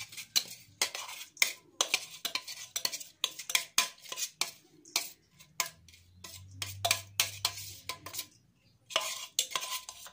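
Plastic food processor bowl knocking and scraping against a stainless steel mixing bowl as ground broccoli is emptied out: a run of irregular sharp knocks and clatters, with a short pause near the end.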